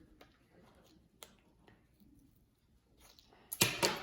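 Faint ticks of a marker drawing on paper, then a short, loud burst of paper-handling noise near the end.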